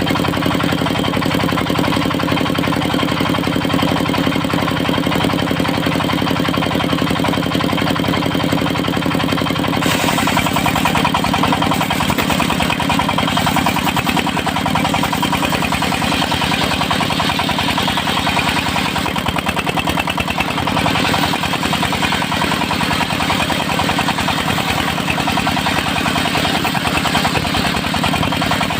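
Engine-driven portable circular sawmill running steadily. About ten seconds in, the sound changes and becomes brighter and hissier, and stays that way.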